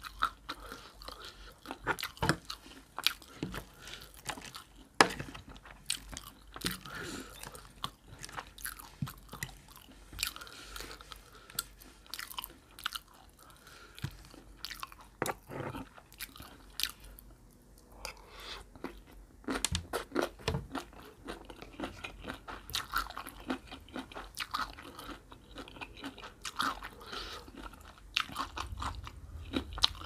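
Close-miked chewing and crunching of a horseshoe crab egg salad with shredded raw mango, carrot and cabbage: a steady run of crisp crunches, briefly quieter a little past halfway.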